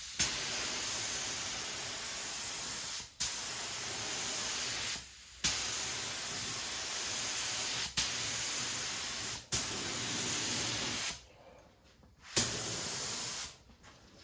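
Compressed-air paint spray gun laying down automotive clear coat over base coat in repeated passes: a steady loud hiss about six times, each pass one to three seconds long and starting with a sharp puff as the trigger is pulled, with brief gaps between passes.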